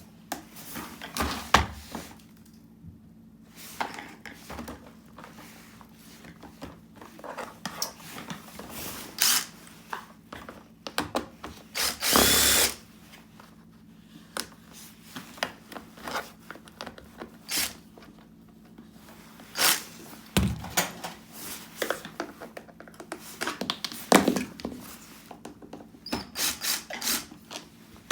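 Repeated clicks, knocks and rattles of hard plastic parts being handled while a vacuum cleaner is worked on, with short whirring bursts of a small electric motor; the longest burst, about twelve seconds in, rises in pitch.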